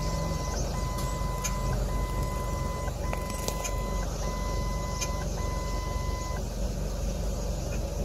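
Steady low rumble of a vehicle, with a series of six long electronic beeps, each about a second with short gaps between, that stop a little over six seconds in.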